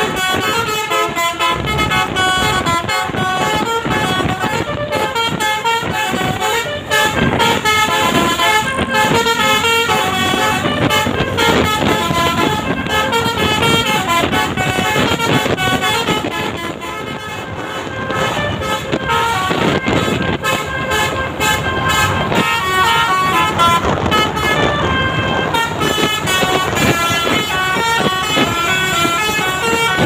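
Telolet basuri multi-tone musical air horn on a tour coach playing a quick run of stepping high notes, over the bus's engine and passing traffic.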